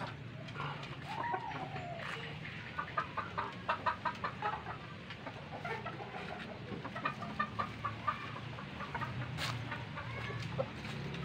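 Chickens in a coop clucking: two runs of quick repeated clucks at about five a second, one about three seconds in and another about seven seconds in, with a single drawn-out call just over a second in. A steady low hum runs underneath.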